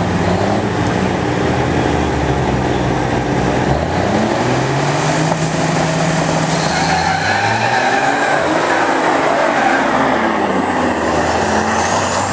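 Two semi trucks' diesel engines running hard in a drag race, revving at the line and then accelerating away. The engine pitch climbs and falls several times.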